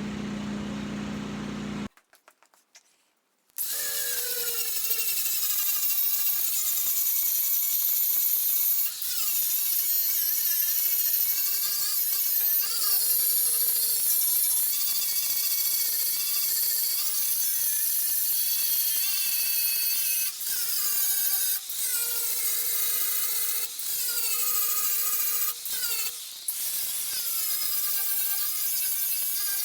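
Power grinder grinding down the tack welds on a thin 18-gauge steel patch panel, a steady hiss with a motor whine that sags and recovers in pitch as the disc bears on the metal. It starts after a short silent gap and eases off briefly several times in the second half.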